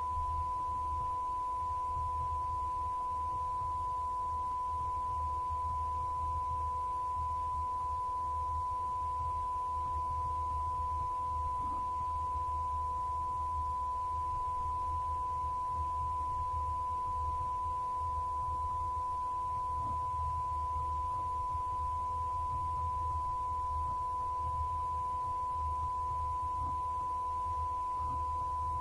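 A steady electronic sine tone held at one pitch without a break, with a fainter lower tone and a low hum beneath it.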